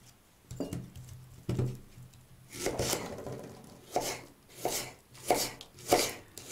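Kitchen knife slicing and chopping an onion on a wooden cutting board: an uneven series of knife strokes against the board, about one a second.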